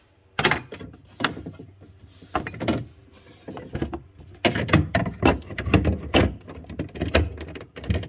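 Irregular plastic knocks and clatter as the replacement refrigerator water filter cartridge is handled and brought up to the filter housing, over a low steady hum.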